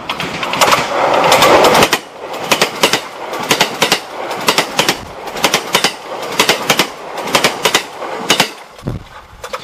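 A train passing close by on the track: a loud rush as it draws level, then its wheels clicking over the rail joints in groups about once a second, dying away near the end.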